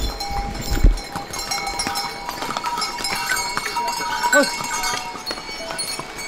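Bells on a passing riding pony's harness jingling, over the voices of people on the path.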